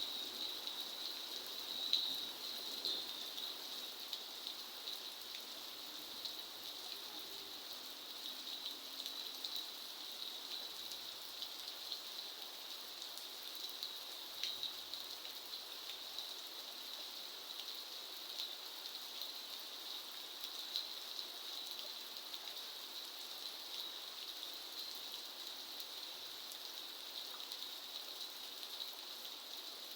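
Steady rainfall, an even hiss of rain with many small drops pattering on surfaces.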